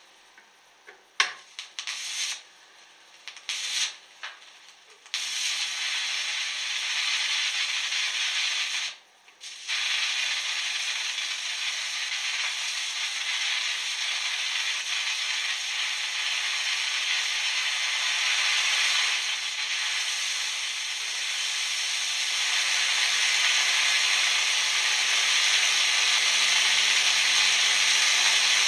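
Electric arc burning in a cup of salt water, its flame rising above the cup: a click and a few short sputters as it strikes, then a steady, loud hiss. The hiss cuts out briefly about nine seconds in, then runs on and grows a little louder near the end.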